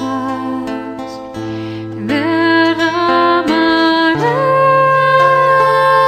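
Slow, gentle devotional choir song: singing over soft sustained accompaniment, with the bass moving to a new held note about four seconds in.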